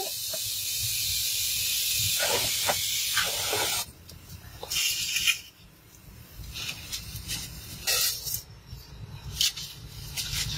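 Steady hiss of a pot boiling over a wood fire, cutting off abruptly about four seconds in. After it come a few short rustling and scraping noises as dry noodles are handled and dropped into the pot.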